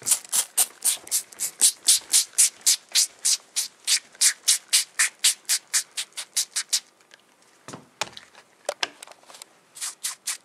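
Fingertips rubbing a blanket damp with cleaner to scrub out a blood stain, quick back-and-forth strokes at about three or four a second. The rubbing stops for about three seconds two-thirds of the way through, with a few short knocks, then starts again near the end.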